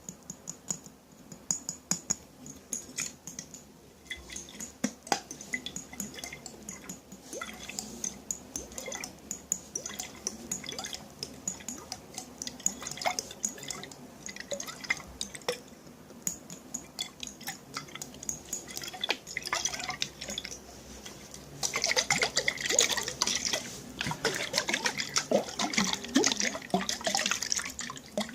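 Water dripping and splashing in a container, with quick successive drops and small splashes. It turns denser and louder about three quarters of the way through.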